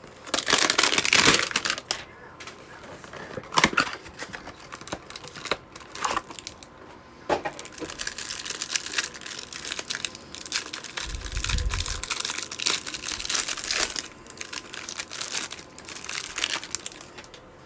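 Trading card hanger box being opened by hand: packaging crinkling and tearing, with scattered clicks as it is handled and a brief low thud about eleven seconds in.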